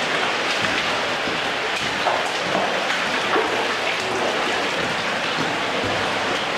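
Cave stream water rushing and splashing steadily, a dense, rain-like hiss of falling water.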